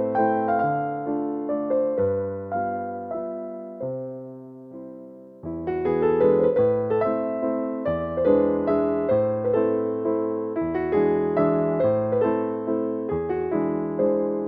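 Background music: a gentle solo piano or electric piano piece playing note by note, thinning out about four seconds in and picking up fuller again a second or so later.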